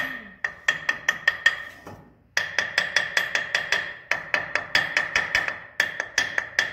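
Rapid hammer taps on the rusted steel pinion housing of a 1933 Ford banjo rear axle, about four or five a second in several runs with short pauses, each strike ringing. The pinion is held under heavy pressure by a bolt-type pinion pusher, and the tapping is meant to shock its rust-frozen bearings loose.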